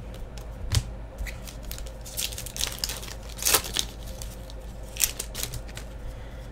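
Foil wrapper of a 2015-16 Fleer Showcase hockey card pack being torn open and crinkled, with scattered sharp crackles that are densest in the middle, among light clicks of cards being handled.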